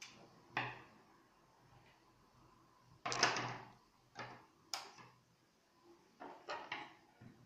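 Hard 3D-printed snake skull model pieces clicking and knocking as the jaw bones are handled, taken apart and set down on a wooden table: a series of light knocks, with a longer scraping rattle about three seconds in.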